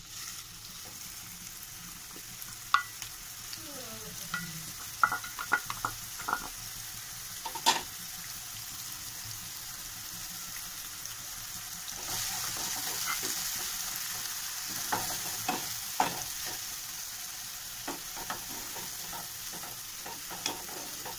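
Grated onion sizzling in hot mustard oil in a non-stick wok, frying until it changes colour, with a spatula clicking and scraping against the pan as it is stirred. The sizzle gets louder a little past halfway through.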